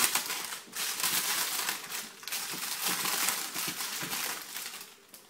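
Greaseproof paper crinkling and crumpling as hands press and fold it down around the rim of a pudding bowl. The rustling fades away about four and a half seconds in.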